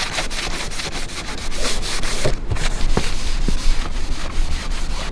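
A cloth rag wet with lacquer thinner scrubbed rapidly back and forth along a skylight's metal frame, a run of quick rubbing strokes. The frame is being cleaned of dirt and old dried sealant before new silicone is applied.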